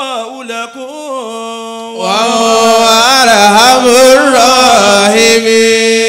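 Melodic Quran recitation (tajwid): a single voice chanting in long, ornamented held notes that bend up and down. About two seconds in it grows louder and fuller.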